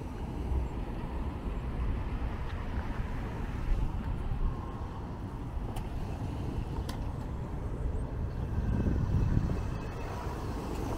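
Road traffic: cars driving past close by, a steady low rumble of engines and tyres that swells as one car passes nearest about nine seconds in.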